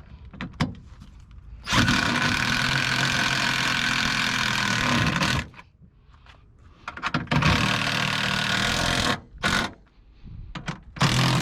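Power drill motor running in bursts: one long run of about four seconds, a shorter one of about two seconds, then two brief blips.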